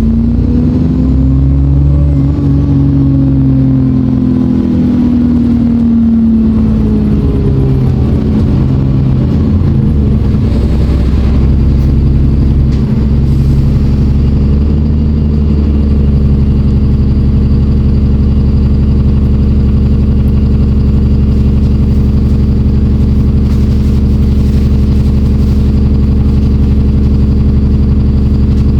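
ADL Enviro 400 double-decker bus's diesel engine heard from on board: it revs up and then falls away over the first several seconds with a faint turbo whine, runs unevenly for a while, and about halfway through settles to a steady idle.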